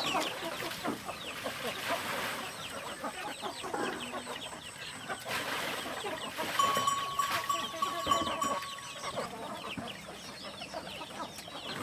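Chickens clucking and chirping, with many short calls overlapping throughout. A steady high tone sounds for about two seconds midway.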